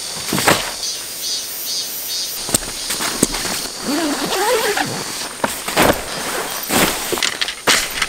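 Nylon tent bag and gear being handled on a wooden deck: a series of sharp fabric swishes, rustles and thumps as the tent bag is set down and opened. Insects keep up a steady high buzz underneath.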